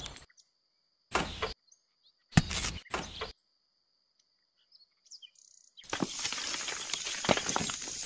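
Small stone chips scraped up with a miniature metal shovel and dropped into a small metal dish, three short rattling scoops, then a longer rattling spill of gravel poured out of the dish starting about six seconds in.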